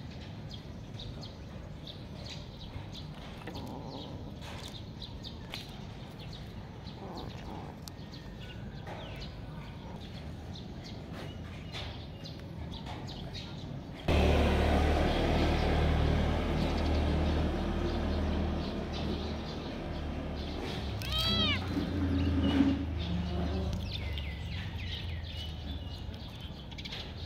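A kitten meows once, a short call that rises and falls in pitch, about two-thirds of the way in, with a fainter meow a few seconds later. A steady low rumble comes in suddenly about halfway and runs under the calls, and faint scattered clicks come before it.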